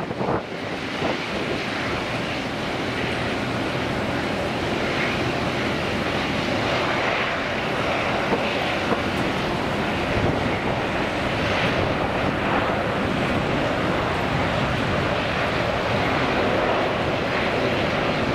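Jet engines of a Boeing 777 airliner landing and rolling out along the runway: a steady, unbroken engine noise.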